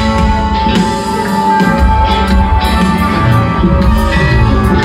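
Live rock band playing an instrumental jam, electric guitar out front with held notes over bass and drums.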